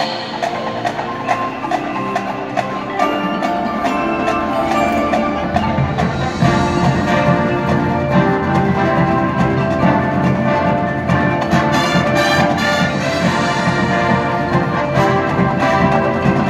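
High school marching band playing its field show. At first the front ensemble's mallet percussion, chimes and wood block carry the music. About six seconds in, the full band comes in and the music grows louder and fuller in the low end.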